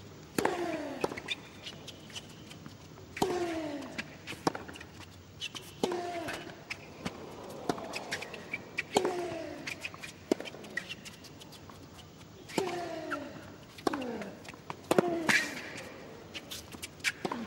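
Tennis rally: racket strings striking the ball over and over, each hit a sharp crack, with a player's short grunt falling in pitch on many of the shots, about every three seconds.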